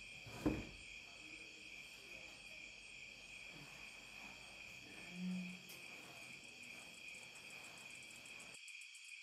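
Faint, steady chirring of crickets, with a soft thump about half a second in and a brief low hum around five seconds in.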